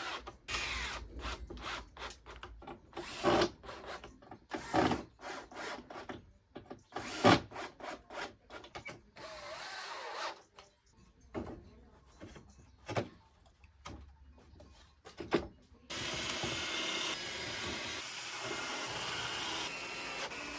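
Notched wooden frame pieces being slotted and knocked together during a dry fit: a string of irregular wooden knocks and clatters, the loudest about seven seconds in. From about sixteen seconds in, a steady noise takes over.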